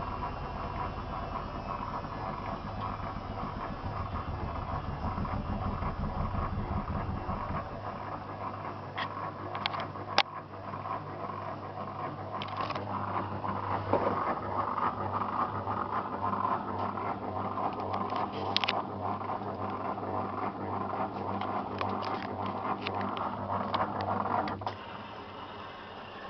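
Zanussi FL984CN front-loading washing machine running a wash cycle: the motor turns the drum with a steady hum, the low rumble eases off about a third of the way in, and a few sharp clicks and knocks come from inside. Near the end the drum motor stops and the sound drops to a quieter hum.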